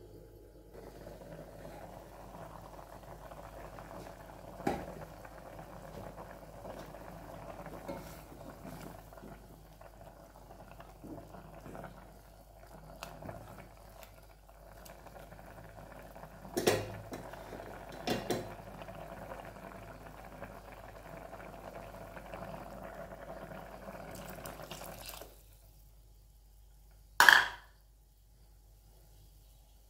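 Cow-skin gravy simmering and bubbling in an aluminium pot, stirred with a wooden spatula that knocks against the pot a few times. The bubbling cuts off sharply about 25 seconds in, and a single loud knock follows near the end.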